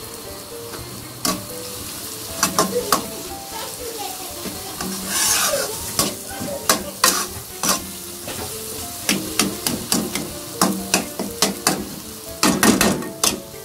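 A metal fork stirring and scraping scrambled egg and onion in an aluminium kadai, its tines clicking sharply against the pan over a light sizzle. There is a brief louder hiss about five seconds in, and a quick flurry of scrapes near the end.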